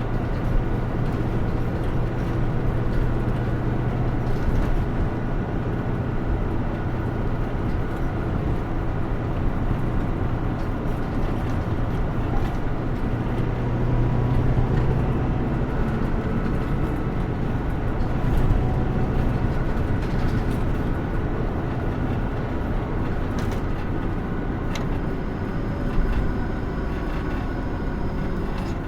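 Running sound heard inside a Hino Rainbow II diesel city bus under way: a steady engine drone with road noise and small rattles. The engine note swells twice as the bus pulls.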